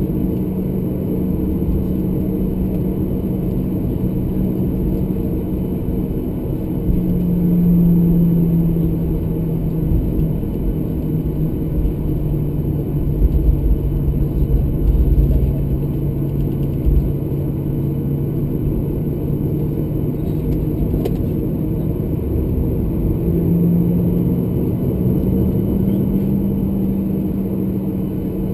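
Boeing 737-800's CFM56-7B engines at taxi idle, heard from inside the cabin as a steady drone. The pitch drops slightly for a long stretch in the middle and rises again near the end, with a few low bumps about halfway through.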